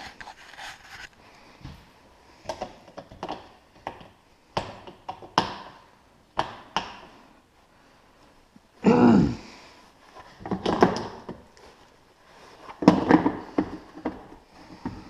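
Clicks, clanks and thunks of hand work on a garage door opener's loose drive chain, with three louder, longer rattling clatters in the second half.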